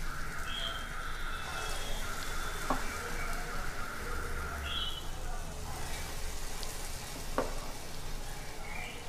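Urad dal vada deep-frying in hot oil in a kadhai: a steady sizzle. Two sharp clicks stand out, one about a third of the way in and one near the end.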